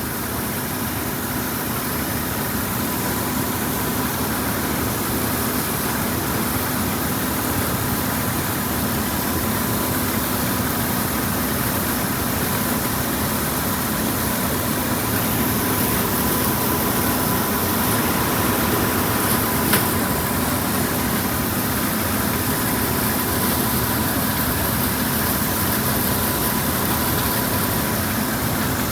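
A large engine running steadily: a constant drone with a faint hum. There is one brief click about twenty seconds in.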